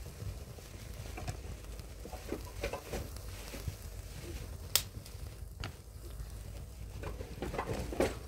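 Small fire of dry twigs crackling, with sticks being laid onto it, and one sharp crack a little past halfway through.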